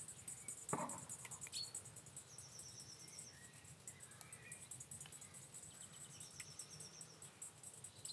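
Faint outdoor ambience: insects chirping in a rapid, even pulse, with a few scattered faint bird chirps.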